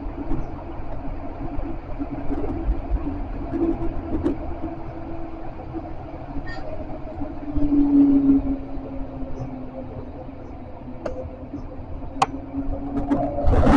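Tram running on its rails with a steady low rumble and a humming tone that swells about eight seconds in, plus a few sharp clicks. Just before the end a loud hiss cuts in suddenly.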